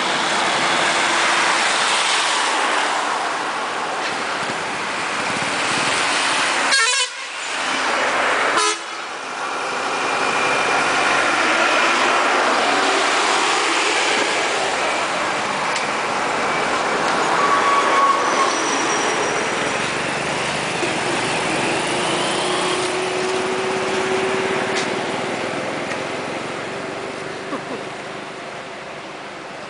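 Road traffic: trucks and other vehicles passing in a steady rush of noise, with horns honking a few times.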